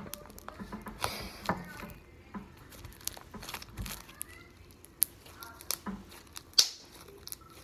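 Slime being kneaded, folded and stretched by hand: an uneven run of sticky clicks, pops and crackles, with one sharper pop near the end.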